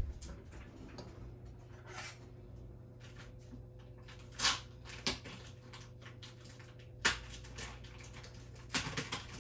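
Kitchenware being handled on a stovetop: several scattered knocks and clinks, the sharpest about seven seconds in and a quick cluster near the end, over a faint steady hum.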